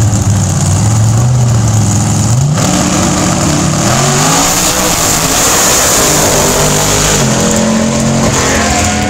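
Nitrous-fed Pro Modified Monte Carlo drag car's V8 at full throttle: a steady high-rpm note on the start line, then it launches about two and a half seconds in, the engine pitch climbing and stepping through several gear changes as the car goes down the track. Near the end the engine note drops to a lower, steady tone.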